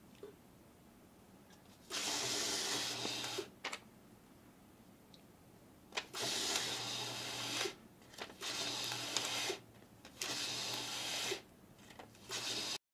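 Tach-It KL Series electric label dispenser running in five short bursts, each about a second and a half, as it feeds the label roll forward to present the next label once the last one is taken off. A few sharp clicks come between the runs.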